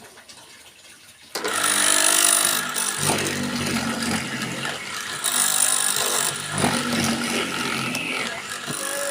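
A homemade wood-mortising machine switches on about a second and a half in and runs with a steady motor hum and whine, its loudness rising and falling a little.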